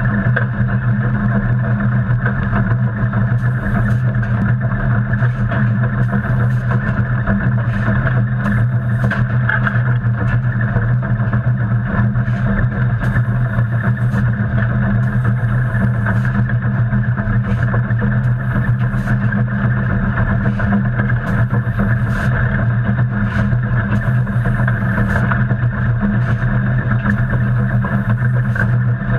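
Steady loud rumble and roar in the cab of New Hope and Ivyland Railroad steam locomotive #40 under way, with irregular short scrapes and clatter of the fireman's coal shovel in the tender's coal.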